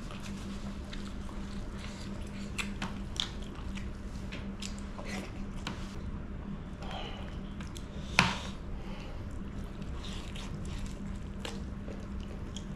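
Eating by hand: wet squishing as fingers pull apart chicken curry with bamboo shoot, with scattered small clicks and one sharper click about eight seconds in. A faint steady hum sits underneath.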